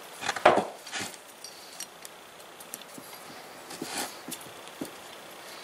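Small metal lathe parts being handled: a few scattered clinks and knocks, the loudest about half a second in.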